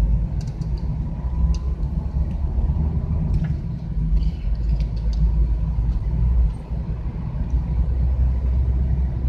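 Inside a moving minibus's cabin: the steady low rumble of engine and road noise as it drives along the circuit.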